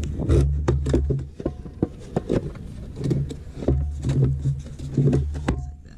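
Hard plastic airbox silencer of a Sea-Doo 787 being pulled and wrestled loose by hand: repeated knocks, scrapes and clicks of plastic, with two spells of low rumble, one at the start and one in the second half.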